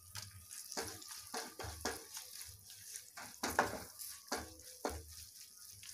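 Wooden spatula stirring and scraping khoya and raisins frying in ghee in a metal kadhai: uneven scraping strokes, about two a second, over a light sizzle.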